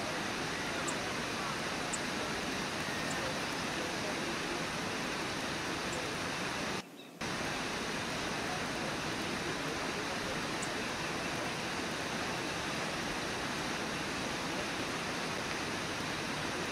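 Steady, even rush of white water pouring over a waterfall. The sound cuts out completely for a fraction of a second about seven seconds in.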